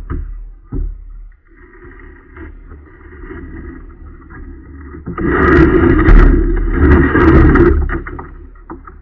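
Plastic fishing kayak's hull knocking and scraping over a concrete launch ramp as it is pushed off into the water, heard through the hull. A couple of knocks at the start, then a rough grinding that is loudest for about three seconds in the second half and fades as the boat floats free.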